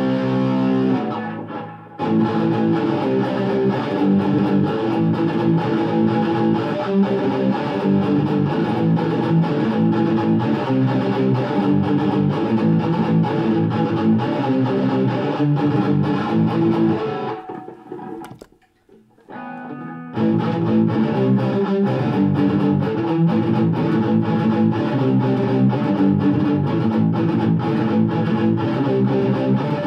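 Electric guitar played through a BOSS SD-1 Super OverDrive pedal, with the pedal's overdrive switched on for the first part. The playing breaks off briefly about two seconds in and again around eighteen seconds in.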